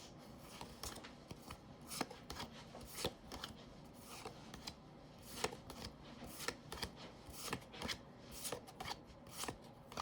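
Pokémon trading cards being flipped and slid over one another by hand: a faint, irregular series of short flicks and rubs.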